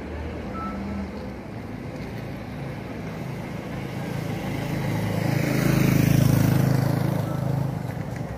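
A car engine running at low revs, growing louder to a peak about six seconds in, then easing off.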